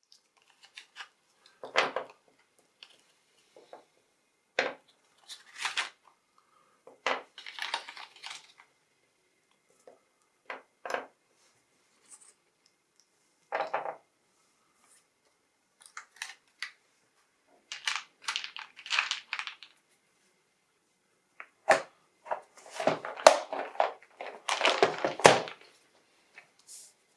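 Dry pastel sticks and small cases being handled on a table: scattered clicks and clacks as sticks are set down and cases opened, with bursts of rustling and clatter, the busiest near the end.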